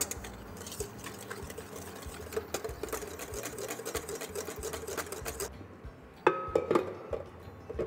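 Wire hand whisk beating egg and sugar in a stainless steel bowl, its wires clicking rapidly against the metal, stopping after about five and a half seconds. A little later a stainless mixing bowl clanks and rings briefly as it is fitted onto a stand mixer, followed by a few lighter knocks.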